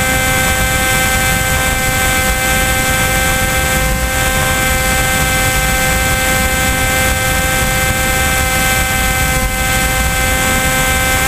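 Electric motor and pusher propeller of an AXN Floater-Jet RC foam plane whining at a steady, constant pitch in cruising flight, heard close up from the onboard camera, with wind rush on the microphone underneath.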